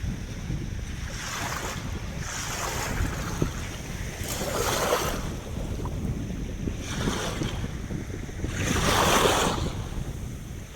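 Ocean waves breaking and washing in, five surges one after another, the loudest near the end, over a steady low rumble of wind buffeting the microphone.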